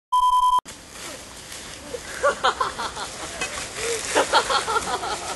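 A half-second electronic beep, then outdoor hiss with several people's wordless vocal sounds rising and falling in pitch, getting busier towards the end.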